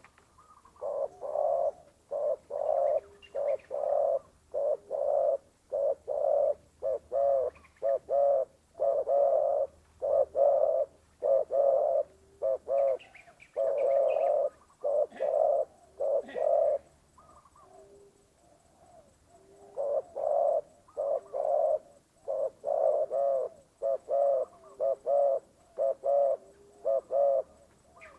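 Spotted dove (terkukur) cooing in long, evenly repeated phrases of low coos, with a pause of about two seconds about two-thirds of the way through.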